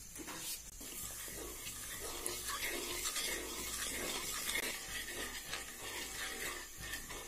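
Wooden spatula stirring wet granulated sugar in a metal kadhai, a gritty scraping and rubbing in repeated strokes as sugar and water are mixed for syrup.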